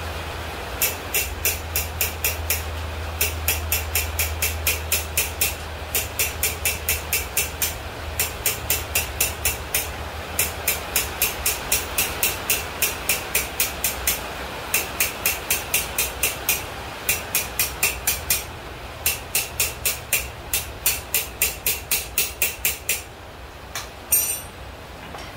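Blacksmith's hand hammer forging thin-walled steel pipe on an anvil. It strikes in quick runs of about five blows a second, broken by short pauses, and stops with a couple of last blows near the end.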